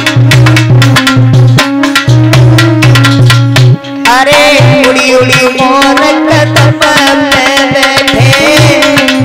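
Devotional bhajan band's instrumental music: fast dholak drumming over held low notes, with a wavering, gliding melody line coming in about four seconds in.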